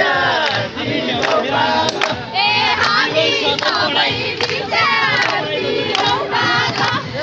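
A crowd of voices singing together over a steady beat of sharp hits, about two a second.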